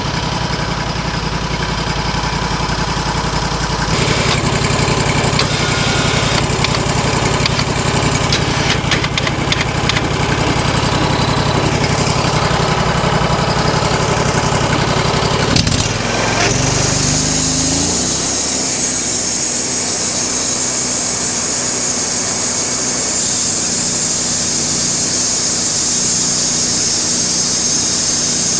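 Sawmill's engine running steadily, picking up about four seconds in. About sixteen seconds in there is a sharp knock and the engine's pitch slides, then a steady high hiss with a thin high whine takes over as the saw cuts through the ash log.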